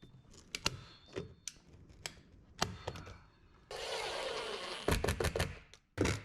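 A staple gun firing staples one after another, sharp separate snaps a second or so apart, then a quick cluster of shots near the end. About four seconds in, a steady hiss lasts about a second.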